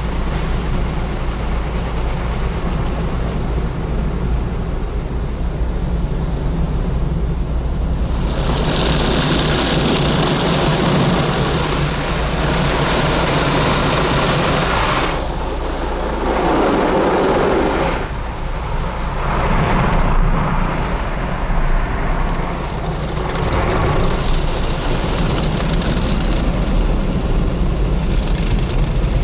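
Automatic car wash machinery running: a steady low hum under a loud rushing hiss from about a third of the way in, which then comes and goes in uneven swells.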